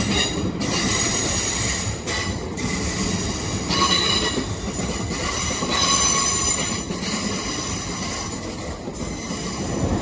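Electric passenger train running on the rails, its wheels squealing in high-pitched tones that come and go over a steady rumble.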